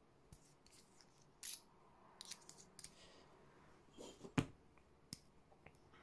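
Light clicks and short scrapes of a stainless steel pen being handled and turned in the fingers, with one sharper click about four and a half seconds in.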